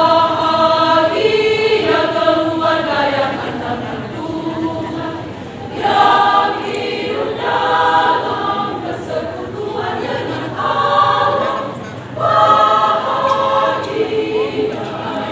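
Large women's choir singing in several parts, in sustained phrases with short breaks between them.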